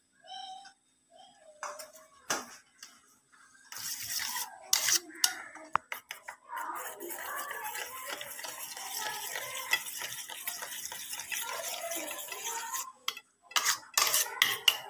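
A spoon stirring and scraping a beaten egg mixture with microgreens in a stainless steel bowl, metal clinking on metal. Separate sharp clinks come in the first few seconds, a dense stretch of stirring runs from about six to thirteen seconds, and a few more clinks follow near the end.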